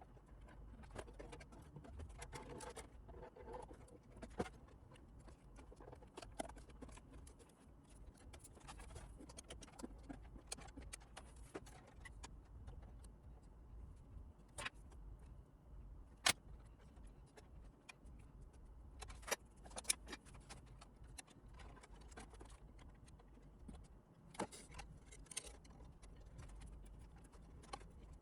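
Faint, irregular clicks, taps and rustles of small objects being handled, with a few sharper clicks partway through, over a low steady hum.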